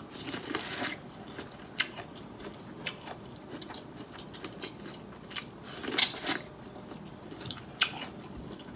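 A person biting into corn on the cob and chewing, close to the microphone: a longer crunching bite in the first second, then scattered short, sharp crunches and mouth clicks at irregular intervals.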